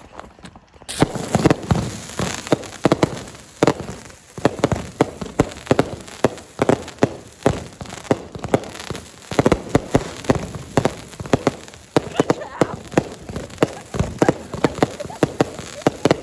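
A large batch of small fireworks going off together: rapid, irregular popping and crackling that starts suddenly about a second in and keeps going without a break.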